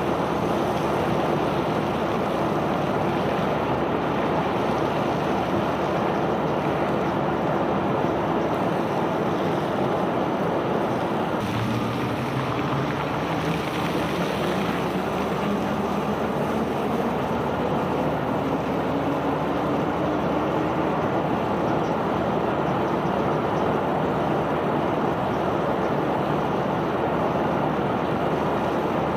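Self-unloading barge's machinery running during cargo discharge: a steady rushing noise with an engine tone underneath that shifts a little before halfway and then slowly rises in pitch.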